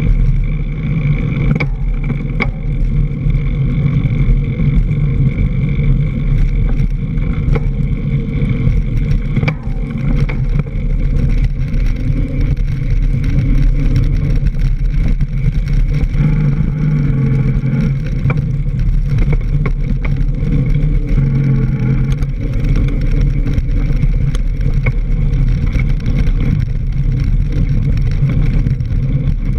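Mountain bike rolling fast over a dirt trail, picked up by a camera mounted on the front fork: a loud steady rumble of the front tyre and wind on the microphone, with sharp knocks and rattles here and there as the wheel hits bumps.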